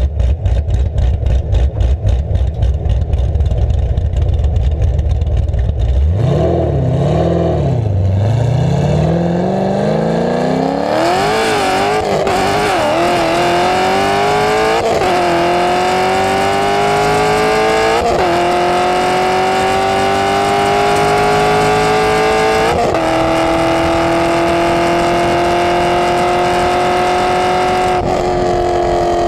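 Exhaust of a 2015 Camaro Z28's 7.0-litre V8 with an aftermarket cam, heard close at the rear bumper. It idles with a choppy lope for about six seconds, then pulls away and revs out through the gears, the pitch climbing in each gear and dropping sharply at several upshifts.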